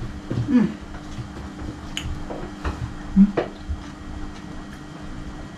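People biting and chewing crunchy garlic bread, with a few sharp crunch-like clicks and short 'mm' murmurs, over a steady low hum.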